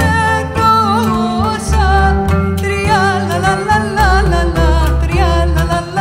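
Live acoustic folk ensemble playing: an ornamented, wavering melody line over plucked double bass and light percussion, from a group of oud, viola, double bass, percussion and pithkiavli flute, in a Cypriot folk arrangement with a bossa nova feel.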